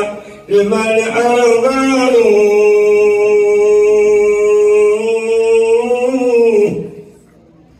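A man solo-chanting Islamic devotional mawlid praise poetry into a handheld microphone. After a short pause his voice moves through a few pitches, then holds one long note for about four seconds and breaks off about a second before the end.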